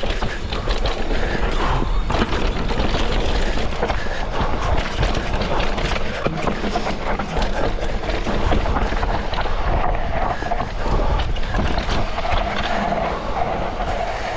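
Wind rushing over an action camera's microphone as a Scott Ransom full-suspension mountain bike descends a dry dirt trail, its tyres rolling over dirt and rocks and the bike rattling and knocking over bumps.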